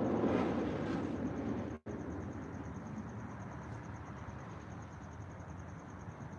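Outdoor ambience: an insect, likely a cricket, trills high-pitched in steady rapid pulses over a low rumble. The rumble cuts out abruptly about two seconds in, at an edit, leaving a softer hiss.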